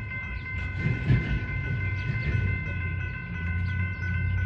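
Freight train rolling through a grade crossing, a steady low rumble of wheels on rail that swells about a second in, with the crossing-signal bell ringing steadily over it.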